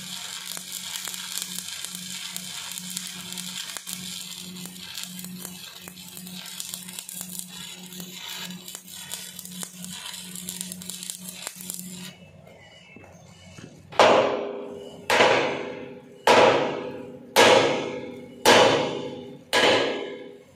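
Arc welding on a dump truck's steel plate guard: a steady crackling hiss with a buzz that stops about twelve seconds in. After a short pause, a hammer strikes the steel about once a second, six ringing blows.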